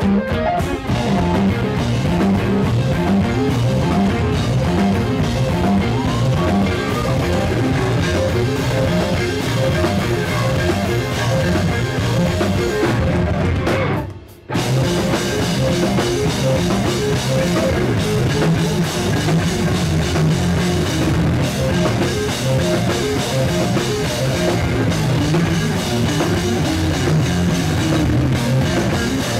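Instrumental rock band playing live at full volume: electric guitars over a drum kit. The band cuts out for about half a second about halfway through, then comes straight back in.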